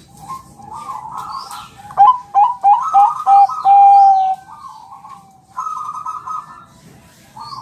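Bangkok perkutut (zebra dove) cooing: a quick run of short notes about two seconds in ends in one long held note, with softer cooing before and after. Faint high chirps sound in the background.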